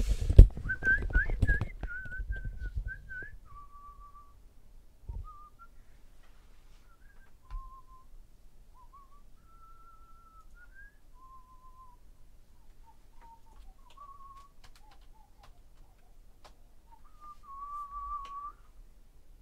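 A person whistling a slow tune, one note at a time in short phrases with pauses between them. Loud bumps and knocks of handling sound over the first couple of seconds, with a couple of single knocks later.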